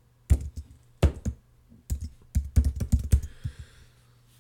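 Keystrokes on a computer keyboard: a short burst of typing, a dozen or so sharp key clicks in quick uneven runs, ending a little past three seconds in.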